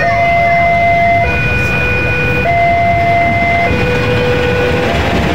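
Level-crossing warning alarm sounding a steady two-tone alternation, changing pitch about every 1.2 seconds, over the low rumble of a CC 206 diesel-electric locomotive passing close by.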